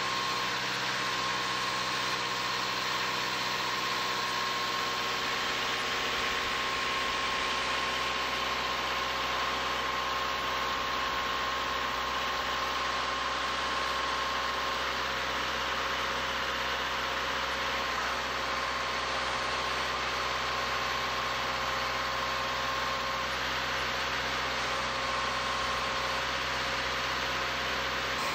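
Bridge inspection truck's engine idling steadily, with a thin steady whine over it.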